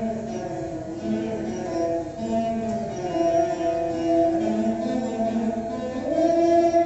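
A duet of two Saraswati veenas playing a Carnatic melody: plucked notes held and bent, sliding from one pitch to the next.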